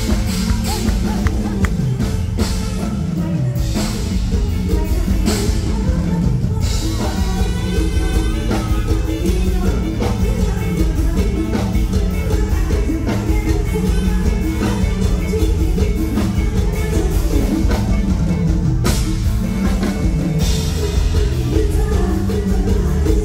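Live Thai luk thung band music played loud through a stage PA: a drum kit and bass keep a steady beat under a woman's singing voice.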